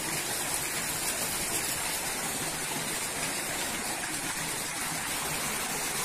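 Steady rush of running river water spilling over a low stepped weir into a stone-walled pool.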